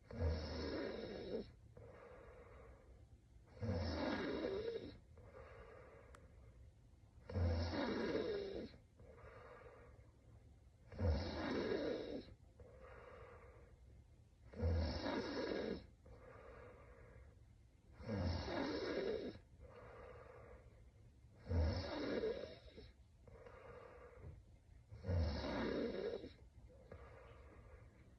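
A sleeping woman snoring in a slow, regular rhythm: a loud snore about every three and a half seconds, eight in all, with a softer breath between each.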